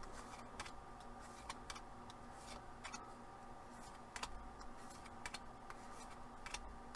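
Faint, scattered clicks and taps of Bakugan trading cards being flipped through by hand, over a low steady hum.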